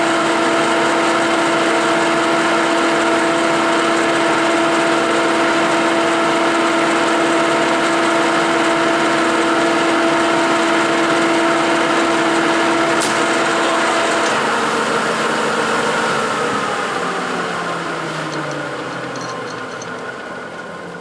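1956 Herbert No. 4 capstan lathe running with a steady hum and whine while a Coventry die head cuts an M20 thread on 20 mm bar. There is a click about thirteen seconds in. Shortly after, the steady tone cuts off and the machine winds down, its pitch falling and its sound fading.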